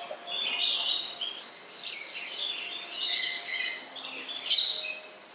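Small birds chirping and twittering in repeated high-pitched clusters, several overlapping calls at a time.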